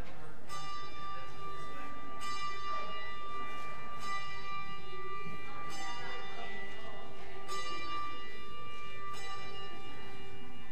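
Brass handbell swung and rung steadily, six strokes about every second and three-quarters. Each stroke rings on clearly into the next.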